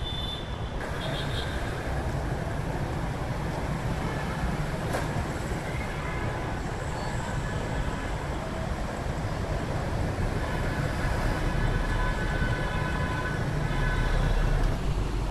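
Road traffic noise from a busy city road: a steady wash of many motorbike engines, car and bus engines and tyres. A low rumble grows louder near the end.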